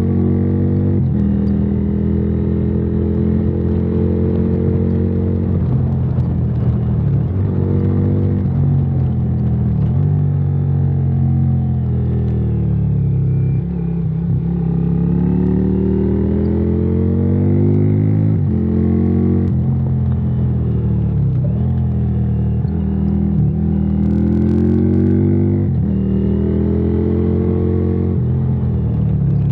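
Yamaha Virago XV535's V-twin engine through a debaffled exhaust, running under throttle on the road. The note holds steady between brief dips in pitch, drops low about halfway through, then climbs again as it speeds up.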